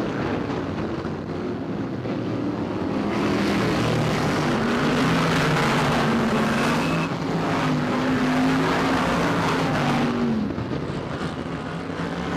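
A pack of BriSCA stock cars racing on a shale oval, several engines running together with their pitch rising and falling as the cars accelerate and lift off through the turns.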